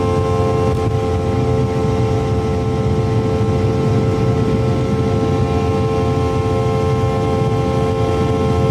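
Jet engines of an American Airlines McDonnell Douglas MD-88 running at steady power, a constant drone of several held tones over a low rumble.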